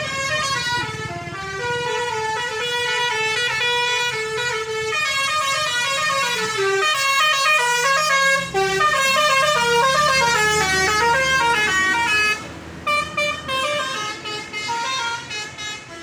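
A tour bus's telolet basuri multi-tone air horn playing a stepping, melodic tune, with the bus engine running underneath. A little past two-thirds through, the tune breaks off into short, choppy horn blasts.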